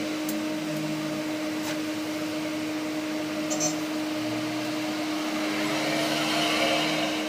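Steady mechanical hum and whir of a running electric machine, with a few light clicks as the metal engine case and parts are handled.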